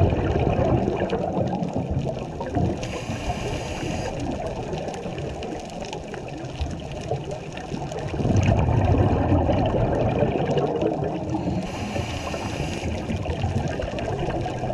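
A scuba diver breathing through a regulator underwater. There are two breaths: each is a rushing gurgle of exhaled bubbles, one at the start and one about eight seconds in, followed a couple of seconds later by the short hiss of an inhaled breath.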